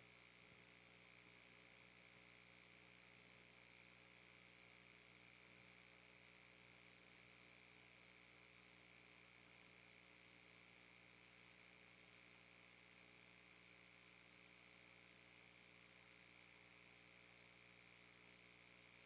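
Near silence: a faint, steady electrical hum with hiss from the sound system.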